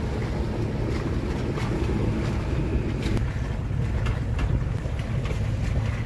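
A boat under way: a steady low rumble of its running motor, with wind buffeting the microphone and water washing past, plus scattered short crackles from the wind.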